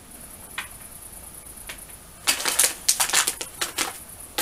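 Crinkly plastic bag of dog treats being handled and reached into: quiet at first, then a burst of crackling and rustling a little over halfway through.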